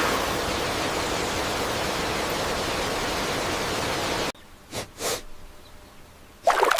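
A steady hiss of falling water that cuts off abruptly about four seconds in. After it, a much quieter scene holds two brief swishes, and near the end water drops plop and drip.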